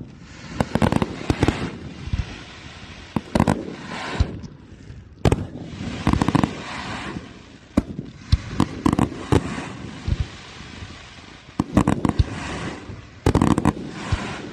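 Fireworks display: aerial shells bursting in a steady series of sharp bangs, often in quick clusters, with crackle and echoing rumble between them.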